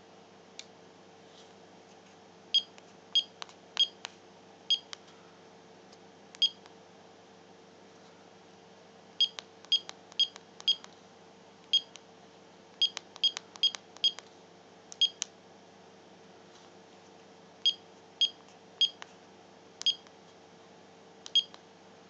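Short, pitched beeps from a PIC-based electronic combination lock, one for each key press, with faint clicks alongside. They come in four runs of about five as combinations are keyed in. A steady faint hum runs underneath.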